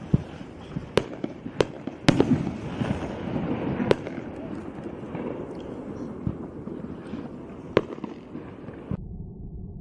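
Primed Pyrotechnics Kings Crown firework rocket bursting overhead: a run of sharp bangs and pops, the loudest about two seconds in, over a hiss as the stars burn out, with a last pop near the end. Music takes over just before the end.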